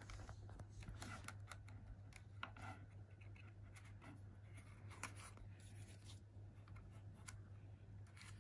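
Faint scratching, rubbing and small clicks of plastic as fingers work protective packing pieces loose and peel them off the side of a model locomotive's plastic body, over a low steady hum.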